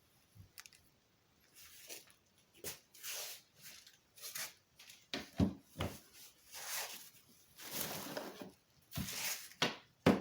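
Irregular rustling and crinkling of packaging with a few light knocks as small parts are handled, in short uneven bursts.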